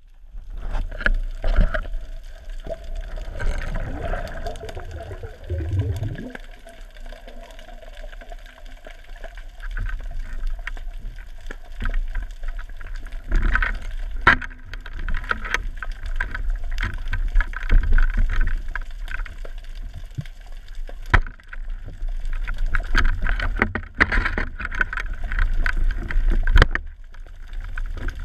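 Muffled water movement and gurgling picked up through an action camera's waterproof housing, with a steady low rumble and a few sharp knocks and clicks.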